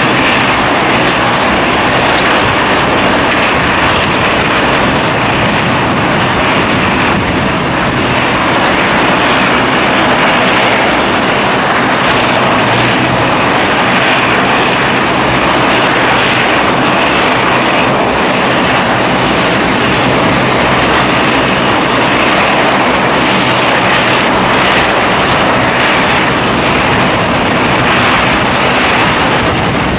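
Jet airliner engines running with a steady, loud roar and a thin, steady high whine.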